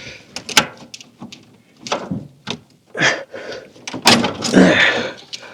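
Hand tools and metal parts clicking and knocking as a fitting under a truck's dashboard is worked loose. There is a louder, longer scrape about four seconds in.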